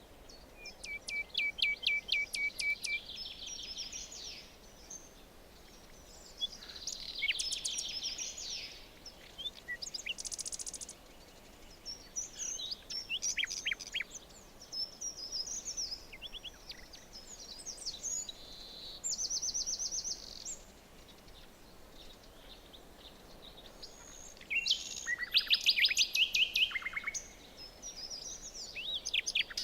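Several songbirds singing in a forest, with varied overlapping phrases: fast trills of repeated notes, short chirps and a high buzzy trill. The loudest bout of song comes a few seconds before the end. Under the song runs a faint steady hiss of forest ambience.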